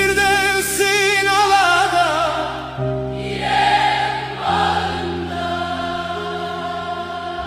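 Music: a voice singing a wavering melody with strong vibrato over long held chords, which change about three seconds in and again about four and a half seconds in.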